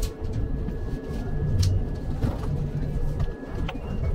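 Train noise: a steady low rumble with scattered clanks and knocks and a faint steady hum.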